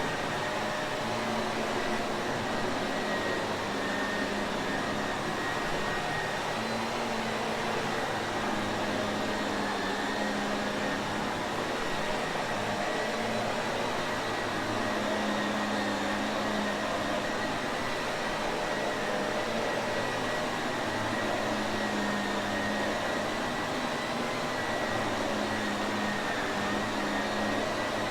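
Shark Navigator vacuum cleaner running steadily: an even rush of air with a thin whine held above it.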